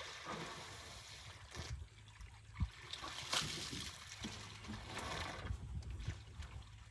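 African elephant working its trunk in a shallow pool, splashing and slurping water in several bursts of about a second each. A single sharp knock about two and a half seconds in is the loudest sound.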